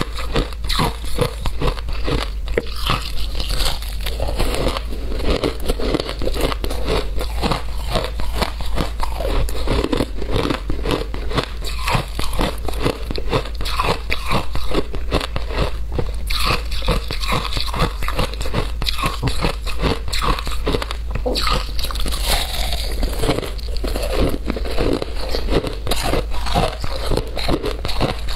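Teeth biting and crunching through a chunk of frozen purple shaved ice, a rapid, continuous run of sharp, brittle crunches as it is chewed.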